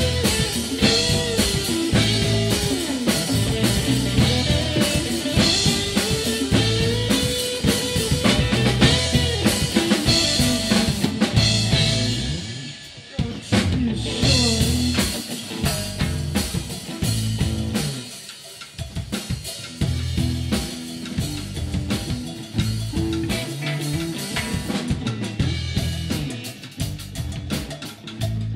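A live rock band plays: a drum kit keeps a steady beat under electric bass and electric guitars, with a lead guitar playing bending, gliding notes early on. The band drops back briefly about 13 seconds in and again around 18 seconds, then picks up again.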